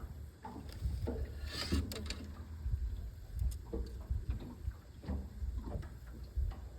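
Rustling and small irregular knocks of hands working at a tangled fishing line and rig, with a brief hiss about a second and a half in, over a low rumble on the phone's microphone.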